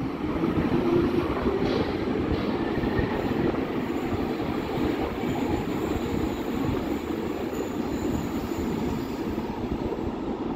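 Berlin U-Bahn large-profile train rumbling steadily on the rails as it pulls out of an underground station and heads into the tunnel.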